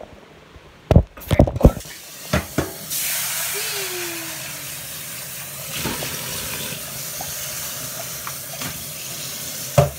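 A metal frying pan clanking several times against a stainless steel sink, then a kitchen tap running water into the sink and pan from about three seconds in.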